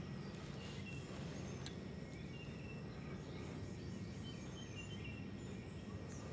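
Quiet outdoor ambience by a lake: a steady low background hiss with scattered short, high chirps from distant wildlife and a couple of faint clicks.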